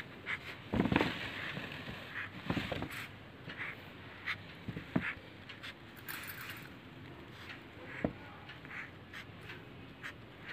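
Felt-tip sketch pen squeaking and scratching on cloth in many short strokes as small squares are inked over a traced design, with a couple of louder rustles of the fabric about a second in and again near three seconds.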